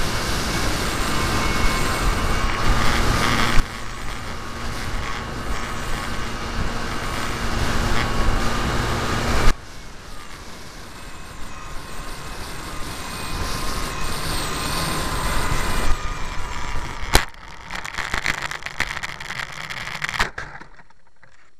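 Wind rush over the wing-mounted camera of an RC Cessna 182 model plane in flight, with the faint steady whine of its motor. The sound drops suddenly twice, there is a sharp click about 17 seconds in, and it dies down near the end as the plane comes down close to the ground.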